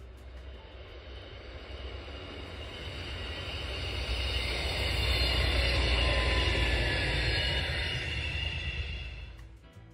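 A GKB Stadler GTW diesel multiple unit passing on the line: rumble and running noise swell to a peak about halfway through and die away near the end, with a high ringing tone from the wheels over the rumble.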